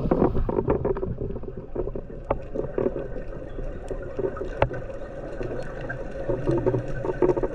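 Underwater sound picked up by a camera in its housing while diving a kelp forest: a muffled low rumble of water with scattered short clicks and ticks, one sharper tick a little past halfway.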